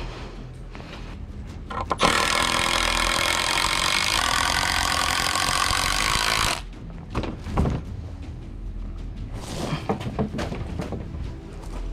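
Electric power saw cutting through a wooden board: a loud, steady whine starts abruptly about two seconds in and cuts off after about four and a half seconds. A few light knocks and clatters of boards being handled follow.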